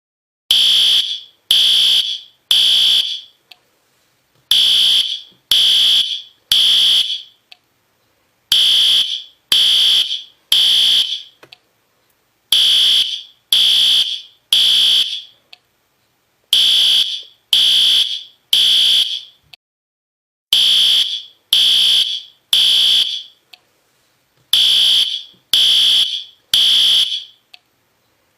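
System Sensor P2R fire alarm horn strobe sounding its horn in the temporal-3 evacuation pattern: three short, high-pitched horn blasts about a second apart, then a pause of about two seconds, repeating about every four seconds. This is the standard signal to evacuate the building.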